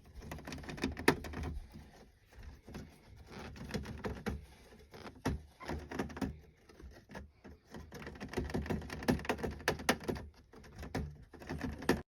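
Kinkuma hamster (a golden Syrian hamster) moving about, making irregular small clicks, scratches and rustles.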